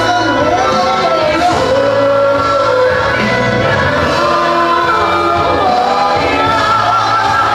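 Congregation singing a worship song together over musical accompaniment, many voices holding and sliding between long sustained notes at a steady, full level.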